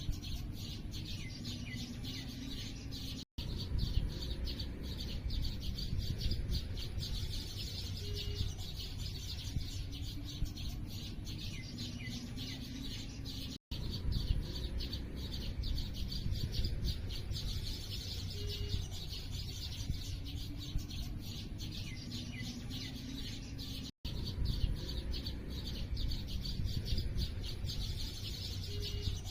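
A chorus of small birds chirping rapidly, high and dense, over a steady low rumble of wind or background noise. The same roughly ten-second stretch repeats, with a brief dropout to silence at each join, three times.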